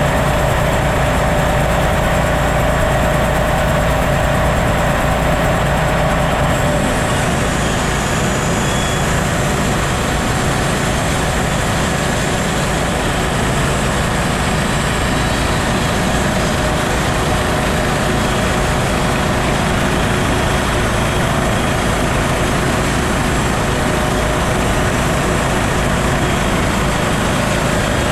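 Gas engine of a homemade bandsaw mill running steadily and loudly; its tone shifts slightly about seven seconds in.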